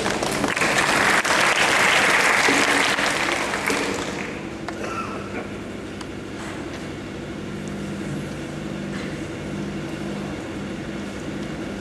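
Audience clapping, which dies away about four seconds in, leaving a steady low hum.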